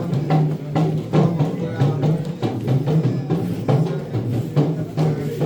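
Loud music with drums and a steady beat over a strong bass line.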